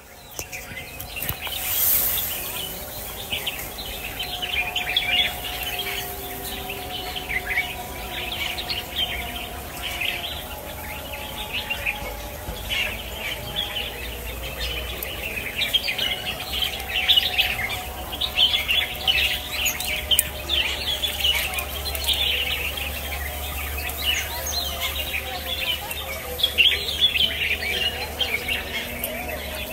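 Many songbirds chirping and calling at once in a steady, dense chorus of short, high chirps that overlap continuously.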